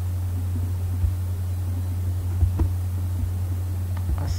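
Steady low hum from the recording setup, with a few faint mouse clicks.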